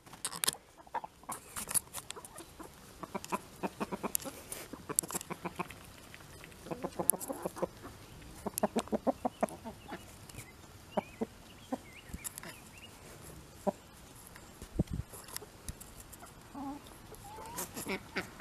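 Backyard hens clucking quietly while they feed, short calls scattered through, mixed with many brief clicks and taps.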